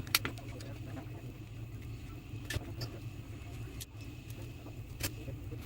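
A steady low hum with three sharp clicks, about two and a half seconds apart.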